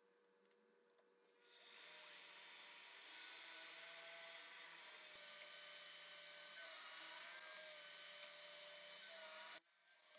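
Drill press running, its twist bit boring into a hardwood workpiece with a steady whine that wavers slightly in pitch. It starts about a second and a half in and cuts off suddenly near the end.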